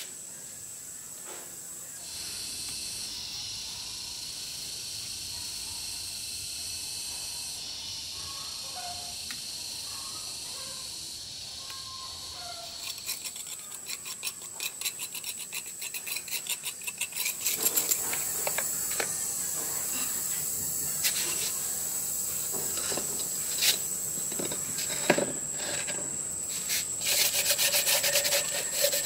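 Steel trowel scraping across the rough top of a freshly unmoulded cement pot in repeated strokes. The strokes start about halfway through and grow louder, then turn into quicker rubbing of sandpaper on the cement near the end. Before the scraping there is a steady high hiss.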